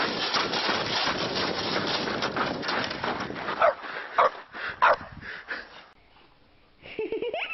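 Plastic sled hissing and scraping over snow as it slides downhill, then a few short barks from the dog as the sled comes to a stop. A voice starts just before the end.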